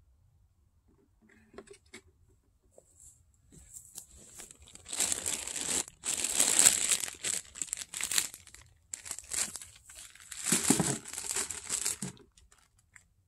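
Plastic bag crinkling and rustling as it is handled, starting about four seconds in and going on in two long stretches with a short break in the middle.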